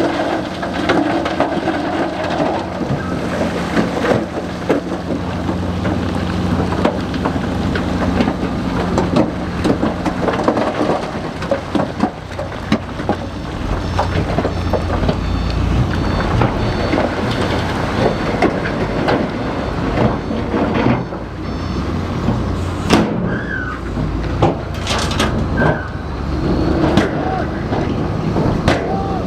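Bulldozer's diesel engine running steadily under load, with a few sharp knocks near the end.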